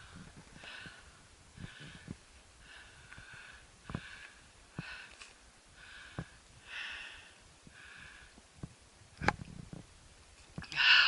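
A hiker's breathing while climbing uphill: soft, rhythmic breaths about once a second, with a few scattered clicks. A louder knock and a rustle come near the end.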